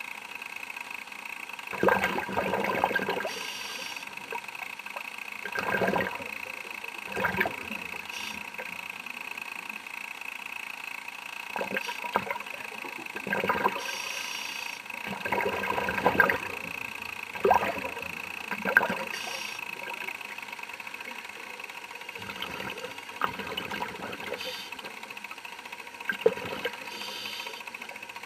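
Scuba diver breathing through a regulator underwater, exhaled bubbles coming in irregular short bursts every few seconds, over a steady thin high whine.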